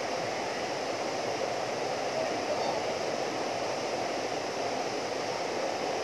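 Small waterfall pouring down a rock face into a pool: a steady rush of falling water.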